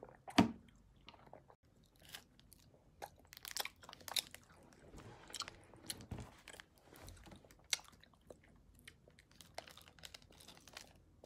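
Faint, scattered crunching and crackling clicks from chewing close to the microphone and from the plastic wrapper of a milk ice cream being handled and bitten open.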